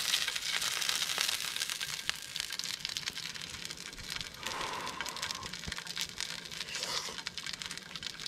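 Oil crackling and sizzling in a frying pan holding pieces of pan-fried fish, a steady fine crackle throughout. A short humming sound rises over it around the middle.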